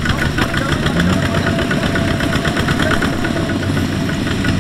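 Two-wheel walking tractor's single-cylinder diesel engine running steadily with a rapid, even knocking beat, under load as it pulls a loaded trailer through mud.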